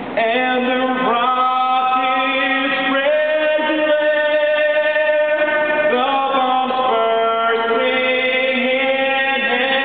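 Young man singing the national anthem solo into a handheld microphone, moving through a few long held notes.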